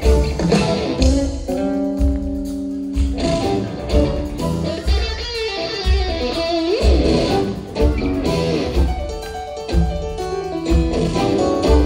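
Live rock band playing an instrumental passage: electric guitar lead over bass, keyboards and a steady drum beat, with a held chord about two seconds in and a bent guitar note rising about seven seconds in.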